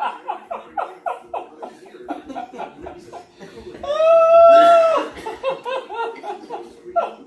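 People laughing hard in rhythmic bursts. About four seconds in comes a loud, high, held squeal lasting about a second.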